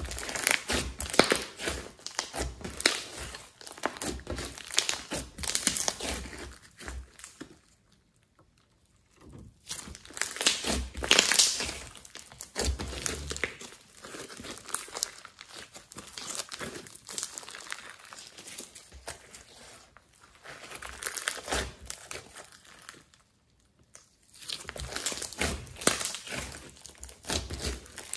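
Hands squishing, poking and stretching a thick white slime mixed with coloured foam beads, giving dense runs of small crackles and pops. The crackling stops twice, briefly, about 8 and 23 seconds in.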